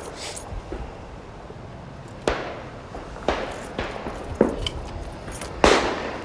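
12-gauge shotgun shots at a clay range: five sharp reports, each with a short echoing tail, starting about two seconds in and coming roughly a second apart, the last one the loudest.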